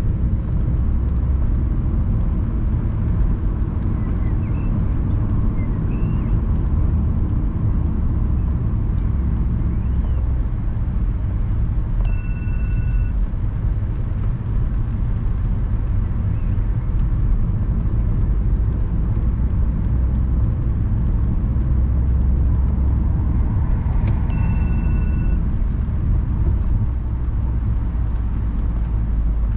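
Steady low rumble of engine and tyre noise inside a moving car's cabin. A short electronic chime sounds twice, about twelve seconds apart.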